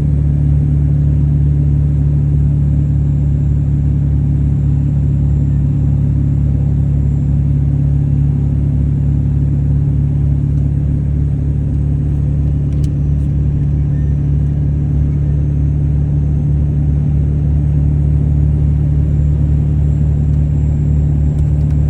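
Ford 7.3L Powerstroke turbo-diesel V8 running as a steady low drone, pulling a trailer load of about 11,500 pounds at road speed.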